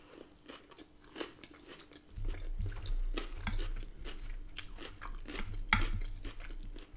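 Close-miked chewing of a mouthful of chicken burrito bowl with crisp lettuce, cucumber and onion: wet crunching and mouth clicks, growing louder about two seconds in with a low rumble under it.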